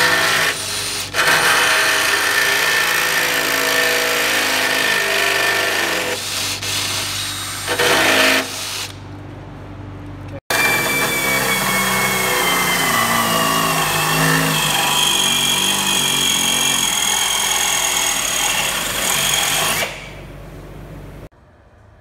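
Power drill boring through the Jeep Wrangler JK's sheet-metal body, opening a 3/8-inch guide hole out to 1/2 inch for a rivet nut. It runs in bursts with a couple of short stops, then after a break runs steadily for about ten seconds with its whine slowly dropping in pitch, and stops.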